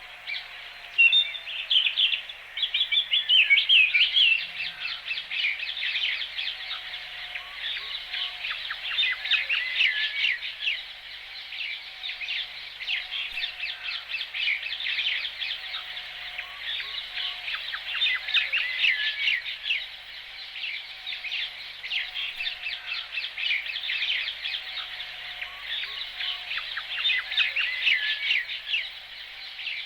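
A chorus of many small birds chirping and twittering at once, dense and continuous, with a fainter low note repeating underneath.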